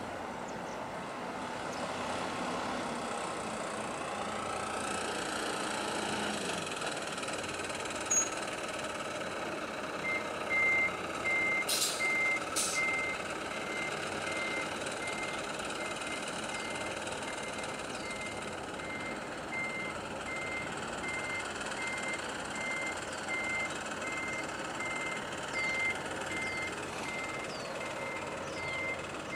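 A vehicle's reversing alarm beeping at a single high pitch, about one and a half beeps a second, starting about a third of the way in, over a steady background of traffic and engine noise. Two sharp clicks sound just after the beeping begins.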